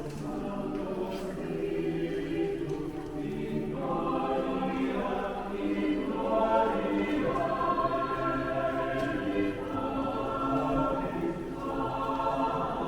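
A choir singing unaccompanied, several voices in slow held chords, growing fuller from about four seconds in.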